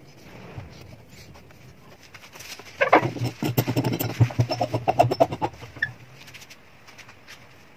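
Threaded screw of a deep-throat bridge clamp being turned down onto a freshly glued bridge on a classical guitar, creaking in a rapid run of clicks. It starts with a brief squeak about three seconds in and goes on for about two and a half seconds.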